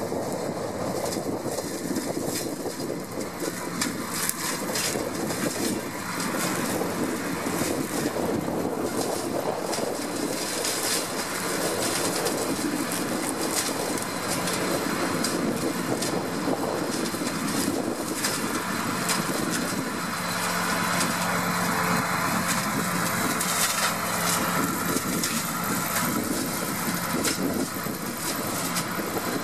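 New Holland 8360 tractor's six-cylinder diesel running steadily under load, driving an arm-mounted hedge cutter that chops through hedge branches with a constant crackle of snapping twigs.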